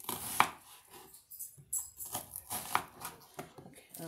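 Kitchen knife slicing through a half onion onto a cutting board: a series of short, sharp cuts, each one ending in a knock of the blade on the board.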